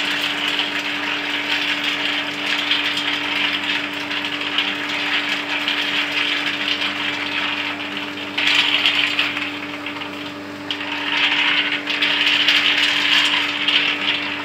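Cashew nuts tumbling and rattling continuously against the wall of a rotating stainless-steel coating pan, as they are coated with chilli, over the steady hum of the machine's drive. The rattle grows louder about eight seconds in, eases briefly, then picks up again.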